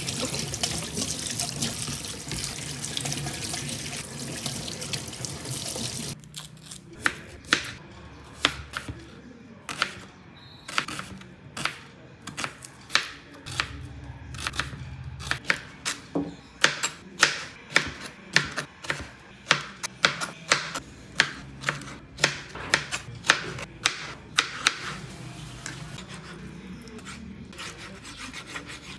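Kitchen tap running into a stainless steel sink as hands are washed under it, stopping about six seconds in. Then a kitchen knife chopping small red onions on a plastic cutting board: sharp knocks of the blade on the board, about one or two a second, thinning out near the end as raw meat is sliced.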